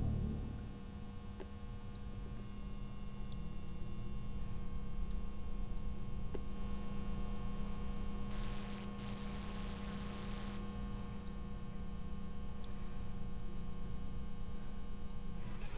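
A steady electrical mains-type hum with several fixed tones layered in it, holding level throughout. About halfway through, a burst of hiss lasts about two seconds.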